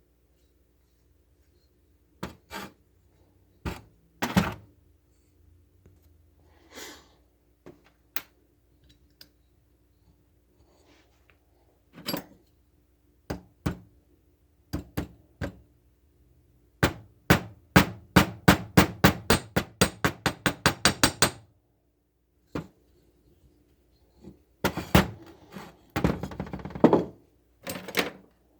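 Knocks and thunks of hand tools and carburetor parts on a workbench: scattered single strikes, then a quick even run of about two dozen light taps in the middle, and a burst of clattering near the end.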